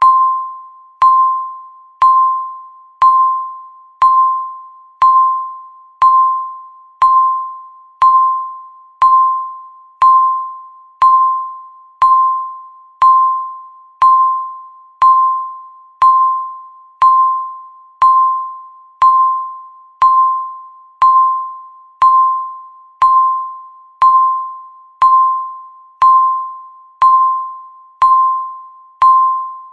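Countdown timer beeps: one clear single-pitched electronic tone sounding once a second, each starting sharply and fading out before the next.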